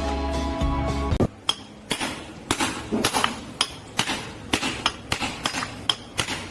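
Background music for about the first second, then a run of sharp clinks and taps, hard objects striking each other two or three times a second at an uneven pace.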